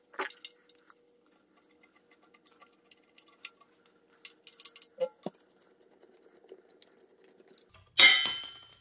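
Light metallic clicks and taps of hand tools on an engine over a faint steady hum. About eight seconds in, a small loose metal part drops and clangs, ringing briefly as it dies away.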